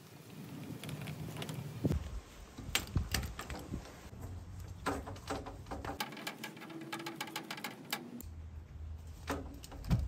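Small Irwin wheel-type tube cutter being turned around black PEX pipe to cut it: a run of light, irregular clicks and scrapes from the cutter and hands on the plastic.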